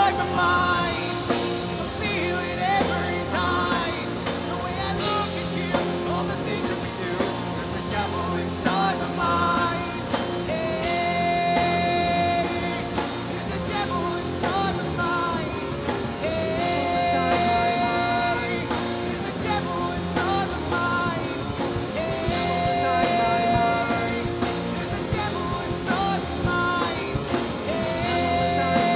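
Hard rock band playing live: a male singer over acoustic and electric guitars, bass and drums. In the second half the singer holds a long note about every five or six seconds.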